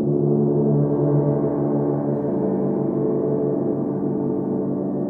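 Several frosted quartz crystal singing bowls sounding together in a steady, sustained drone of overlapping tones that waver slowly, with no fresh strike.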